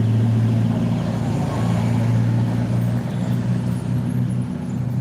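Bus engine running with a steady low hum close by, easing off slightly about three seconds in.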